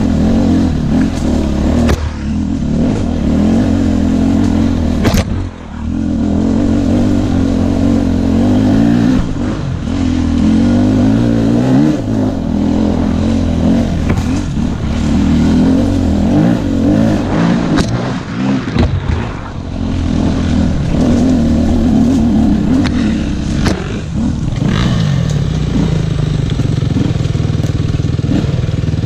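KTM 250 EXC-F's single-cylinder four-stroke engine running under varying throttle, its pitch rising and falling as the bike climbs a rocky trail, with a few sharp knocks from stones along the way. Near the end it settles into a steadier, lower note as the bike comes to a stop.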